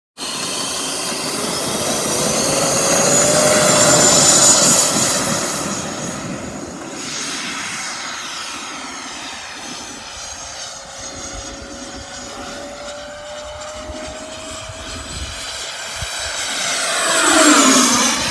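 Freewing Mirage 80 mm electric ducted-fan jet whining in flight; its 12-blade fan is driven by an inrunner motor. The whine swells as the jet passes close about four seconds in and eases as it flies off. It comes past again near the end, growing loudest and then sweeping down in pitch as it goes by.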